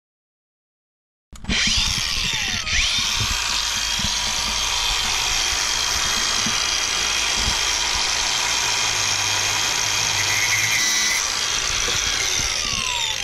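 Makita cordless angle grinder cutting through Dash 4 braided Teflon hose. It starts suddenly about a second in and runs with a steady high whine throughout the cut; near the end its pitch starts falling as the disc winds down.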